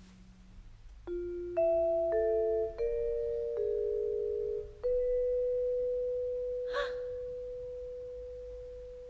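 Vibraphone: six mallet notes struck one after another in a slow, wandering line, each ringing on into the next, the last one held and slowly fading for several seconds.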